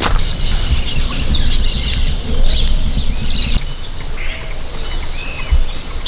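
Rainforest morning ambience: scattered bird chirps and calls over a steady high hiss. A low rumble underneath stops abruptly about three and a half seconds in.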